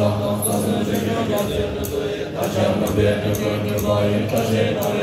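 Tibetan Buddhist monks chanting together in low, deep voices, holding a steady drone that pauses briefly about two seconds in. A large frame drum is struck at intervals beneath the chant.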